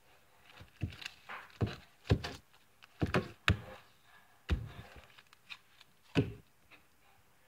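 Hands stretching and squishing glossy butter slime, giving a string of irregular clicks and thunks, the loudest about two to three and a half seconds in and again near six seconds.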